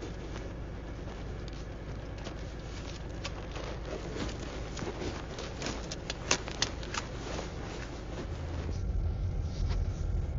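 Paper banknotes being flipped and rustled in the hands, a run of crisp flicks and rustles that is busiest in the middle, over the steady low hum of a car interior. The car's low rumble grows louder near the end.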